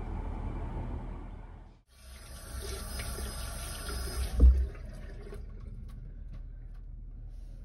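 Tap water running into a bathroom washbasin while hands are rinsed under it, starting about two seconds in. There is a brief loud thump about halfway through, after which the water goes on more softly.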